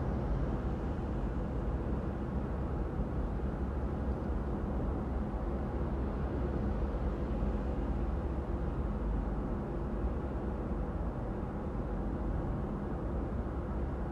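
Car driving at a steady speed: a steady low rumble of engine and tyre noise that does not change.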